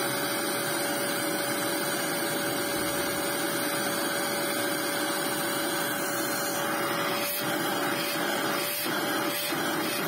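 Homelite bagless dual-cyclone vacuum cleaner's motor running at full speed: a steady whine over the rush of air through the unit. Near the end there are a few light taps of hands on its plastic housing.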